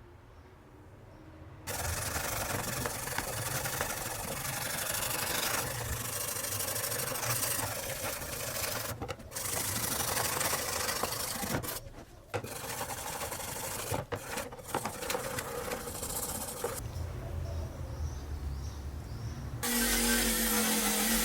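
Abrasive scrubbing on a rusty steel knife blade: a continuous rough scraping hiss that pauses briefly three times and stops a few seconds before the end. Near the end a different sound with a steady low hum starts.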